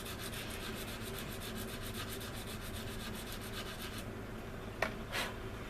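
Sanding stick rubbed quickly back and forth over a glued seam on styrene plastic, smoothing the CA-glued joint flush, in fast even strokes that stop about four seconds in. Two short taps or knocks follow near the end.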